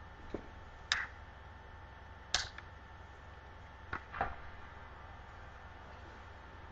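Steady low hum of a competition hall, broken by about five short, sharp sounds, the loudest about a second and two and a half seconds in.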